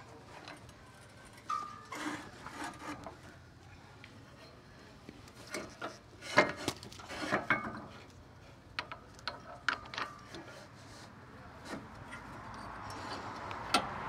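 Scattered wooden knocks, scrapes and metal clicks as a squared pine log is shifted against the rails and clamped down on the steel bed of a Wood-Mizer LT15 sawmill, with a cluster of sharper knocks about halfway through.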